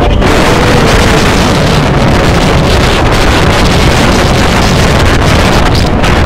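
Strong wind buffeting the microphone: a loud, steady rushing with a low rumble underneath.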